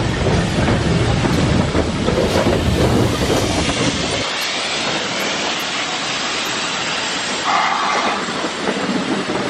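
Steam locomotive 5239 'Goliath', a GWR 2-8-0 tank engine, running past close by with its train of coaches. Its deep rumble drops away sharply about four seconds in as the engine clears, leaving the coaches rolling past with their wheels clacking over the rail joints.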